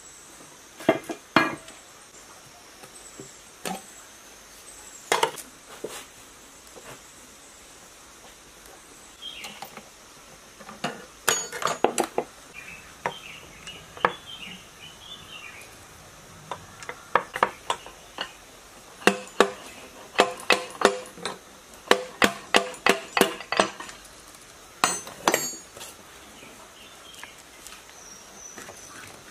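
Metal hand tools clinking, tapping and knocking against a rusty single-cylinder diesel engine block and its loose parts as it is taken apart, in irregular strikes with a quick run of taps, about three a second, two-thirds of the way through.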